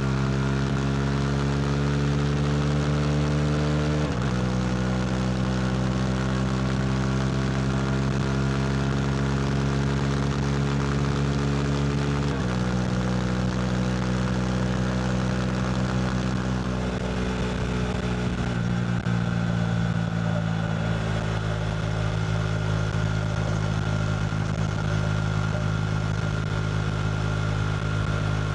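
KTM RC390's single-cylinder engine through a Two Brothers slip-on exhaust, pulling under throttle with the pitch climbing steadily and dropping sharply at two upshifts, about 4 and 12 seconds in. Past the middle the pitch sinks gradually as the rider eases off, then the engine holds a steady cruise.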